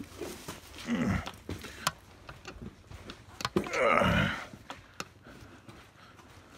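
Two drawn-out wordless vocal sounds, each falling in pitch, about a second in and about four seconds in. Faint scattered knocks and clicks come between them.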